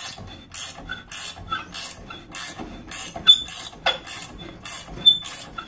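Hand-cranked steel slip roller turning as a strip of 12-gauge steel is fed back through its three rollers and curved, making a steady rhythm of metallic scraping clicks, about two a second, with short metal pings between them.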